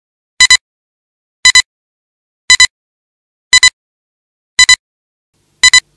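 Old-film countdown leader beeps: six short, high-pitched double beeps, about one a second, marking off the numbers of the countdown.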